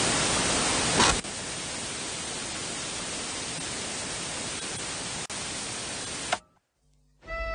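TV static hiss, loud for about the first second and then steadier and quieter, with a single click about five seconds in. It cuts off suddenly after about six seconds, and music begins just before the end.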